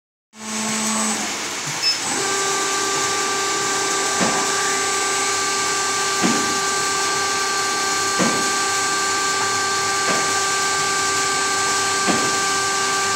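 Injection molding machine running: a steady machine whine with several held tones and a hiss, which sets in about two seconds in. A short click comes about every two seconds.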